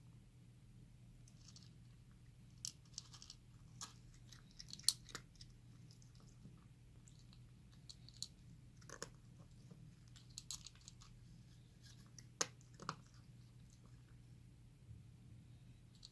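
A cat chewing food up close: irregular sharp crunches, loudest about five seconds in and again around twelve seconds, over a steady low hum.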